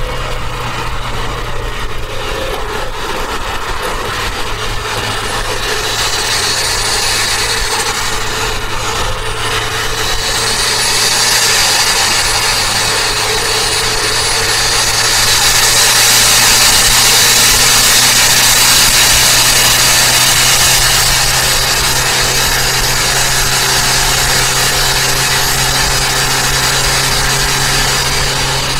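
Turbocharged Toyota Avanza running at speed: a steady engine drone under a wide hiss of road and wind noise, with a thin high whistle that rises and falls. The hiss swells louder about ten seconds in and eases off after about twenty seconds.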